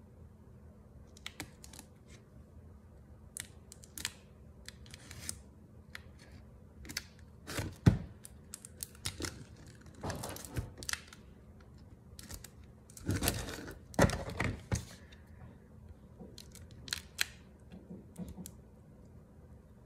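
Hands handling a stiff board mailer package and working at its taped flap: scattered scrapes, taps and rustles, loudest about eight seconds in and again between about ten and fifteen seconds in.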